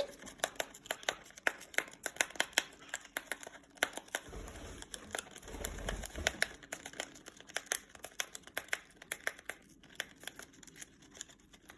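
Paper tea-bag wrapper crinkling and tearing as it is picked open: many quick, irregular crackles, with a dull low bump partway through.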